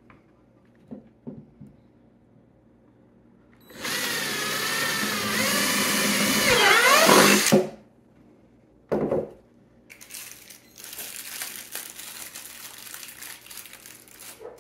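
Power drill boring a hole through the side of a plastic 5-gallon bucket for about four seconds, its whine wavering in pitch as the bit bites and loudest just before it stops. A short second burst of the drill follows, then quieter scraping and handling noise.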